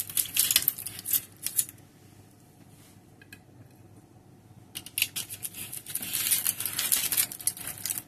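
Metal palette knife clinking and scraping against a ceramic plate as a piece of fish is laid on it. There is a quick run of clicks and scrapes, a quiet spell of about three seconds, then more scraping and clinking.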